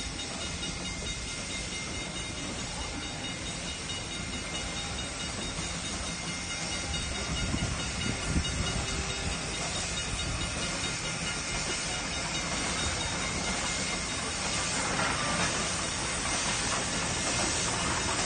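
A steam train rolling slowly past on the rails, the cars going by first, with the steam hiss of a 1929 Lima three-truck Shay geared locomotive growing louder as it draws alongside in the last few seconds.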